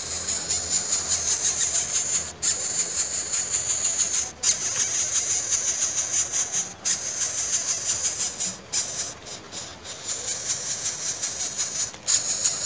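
Greater coucal chicks begging at the nest: a continuous high, hissing squeal that breaks off briefly every couple of seconds while the parent feeds them.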